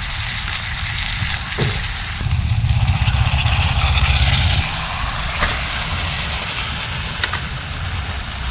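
Onion-tomato masala sizzling in a steel kadai as water is poured in. The sizzling swells from about two to four and a half seconds in. A few light clinks of the spoon against the pan, and wind rumbling on the microphone.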